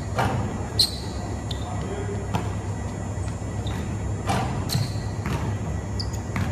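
Basketball bouncing on a hardwood gym floor several times and sneakers squeaking briefly on the court, with the sounds echoing in a large gym over a steady low hum.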